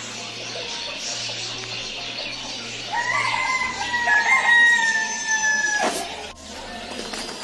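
A rooster crowing once, a single long call of about three seconds beginning about three seconds in, falling slightly in pitch and ending with a sudden drop.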